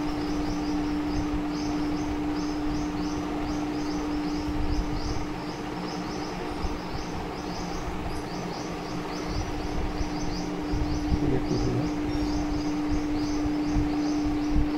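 Birds chirping rapidly and continuously in high, short notes over a steady low hum.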